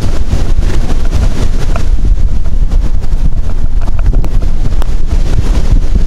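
Wind buffeting the microphone: a loud, constant low rumble.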